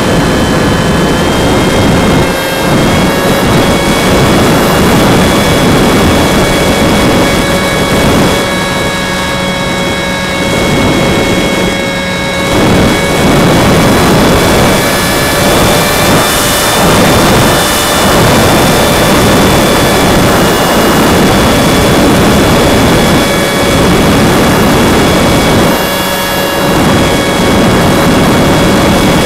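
A Go Discover FPV foam plane's upgraded electric motor and propeller running with a steady whine. It is heard through the plane's own onboard camera, under loud wind rush over the microphone. The sound eases briefly a few times.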